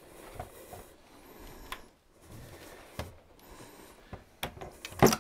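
Scattered clicks, rubs and light knocks of a tall floor-standing PS Audio Aspen FR30 loudspeaker being handled as its grille is pulled off. A sharp knock about five seconds in is the loudest.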